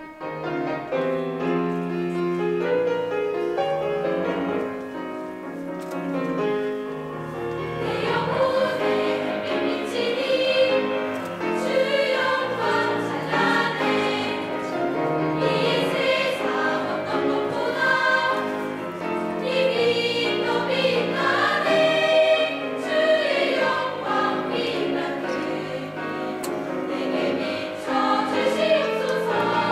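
Girls' high school choir singing a hymn with grand piano accompaniment; the singing grows fuller and louder about eight seconds in.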